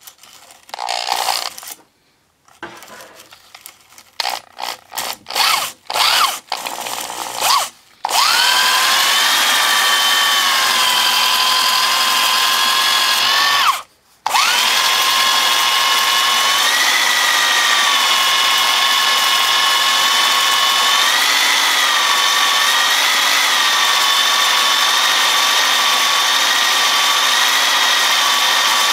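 Several short bursts of sound in the first eight seconds, then a handheld drill whines up to speed, spinning a 2-inch ball cylinder hone in the cast iron cylinder bore. It stops briefly about fourteen seconds in, then restarts and runs steadily with a slight wavering in pitch.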